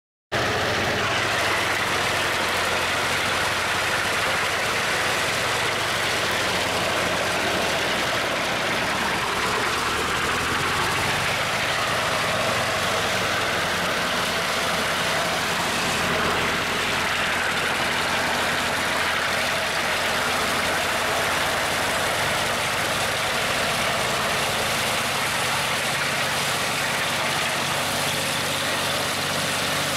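Homemade engine-driven wood chipper running steadily as scrap boards are fed into it: a constant engine drone under a dense, even noise of the machine at work.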